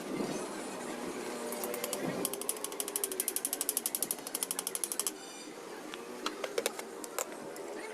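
Ratchet wrench being worked: a rapid run of clicks, about a dozen a second, for roughly three seconds, followed by a few scattered clicks.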